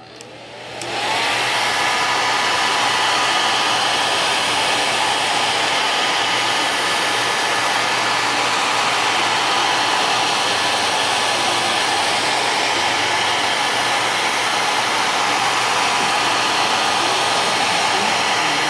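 Hair dryer switched on, spinning up over about the first second, then blowing steadily on its high setting.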